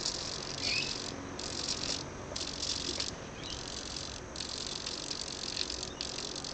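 Hobby servos on an RC helicopter buzzing as they move and jitter, in stretches of about a second with brief breaks. This is the servo jitter that the owner says sets in when the transmitter sticks are in certain positions.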